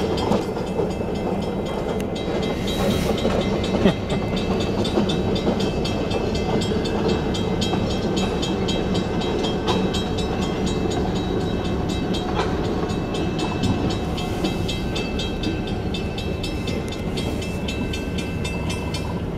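Passenger train with a diesel locomotive rolling slowly across a road grade crossing: a steady rumble of wheels and cars, with the crossing signal's bell ringing in an even rhythm. Heard from inside a car.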